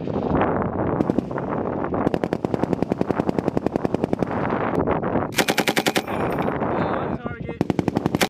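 M240B 7.62 mm machine guns firing long bursts of rapid automatic fire, the shots running close together. A louder, sharper burst comes about five seconds in, and after a short lull a final burst comes near the end.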